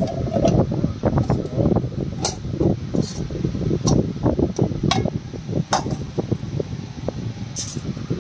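Wind buffeting the microphone in a steady low rumble, with a few light metallic clicks of a wire grill basket against a steel karahi as the grilled chicken is unloaded.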